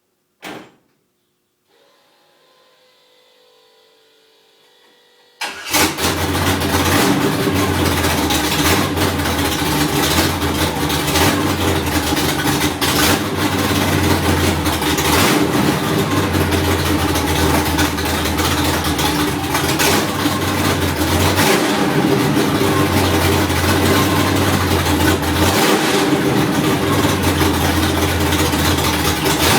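A click, then a faint hum for a few seconds, then a car engine starts about five seconds in and settles into an idle whose low end rises and falls unevenly: the rough idle the owner is showing.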